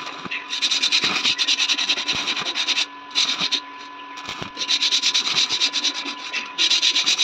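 Stick (arc) welding on iron bed-frame steel: the electrode arc crackles and sizzles in stretches, breaking off briefly a couple of times and restarting, strongest again near the end.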